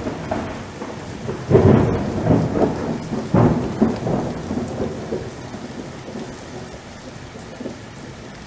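Thunder rumbling over steady rain, with the strongest claps about a second and a half and three and a half seconds in, then dying away.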